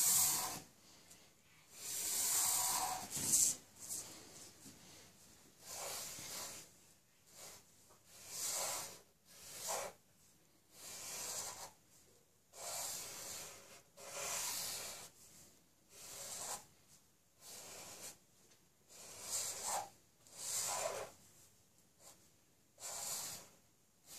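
Felt-tip marker tip rubbing across paper as a drawing is inked: a string of short, scratchy strokes at an uneven pace, each under a second or so, with brief pauses between.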